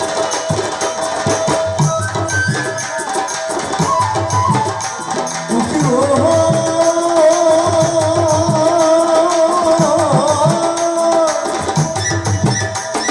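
Live Baul folk music: a dhol and other percussion keep a steady beat under melodic accompaniment. About five seconds in, a singer slides up into one long, wavering held note lasting about six seconds, then lets it go.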